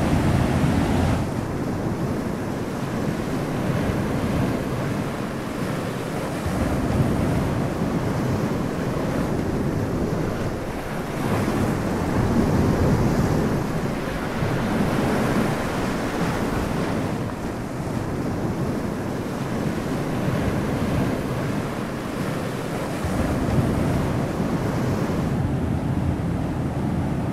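Ocean surf: waves washing onto a shore in a continuous rushing wash that swells and eases every several seconds.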